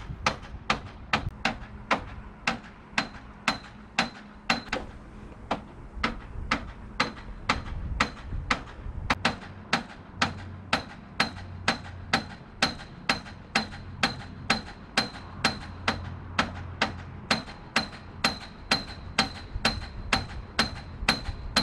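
Steady hammering, about two strikes a second: a galvanized carriage bolt on the end of a telescopic pole tapping a loose gutter spike. Each strike is metal on metal and rings faintly. The spike is being driven back flush into the aluminum eavestrough.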